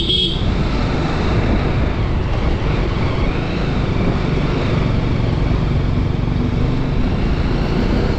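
TVS Apache RR 310's single-cylinder engine running steadily as the motorcycle rides at low speed, heard from the rider's position with a constant drone of engine and road noise.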